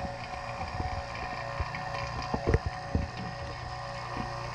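Hilmor two-stage rotary-vane HVAC vacuum pump running steadily with an even motor hum, pulling a vacuum on old oil that the owner suspects is keeping it from reaching deep vacuum quickly. A few short knocks and clicks sound over the hum.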